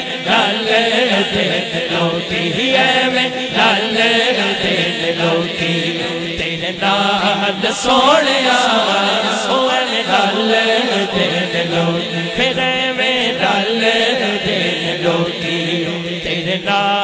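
Male voices chanting and singing a Punjabi naat melody, with the lead voice held and drawn out between sung lines.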